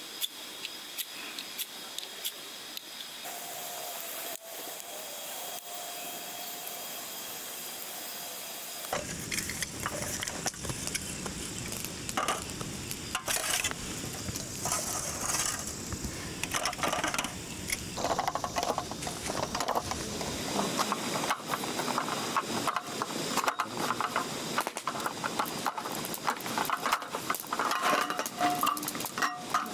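Camp-fire wood being handled and chopped: dry twigs and kindling rustling over a faint hiss, then a run of sharp knocks and cracks, thickening into dense crackling in the second half.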